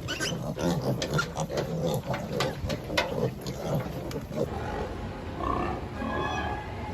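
Pigs grunting, with many sharp knocks and clatters over the first four seconds or so, giving way to higher pitched squeals and calls.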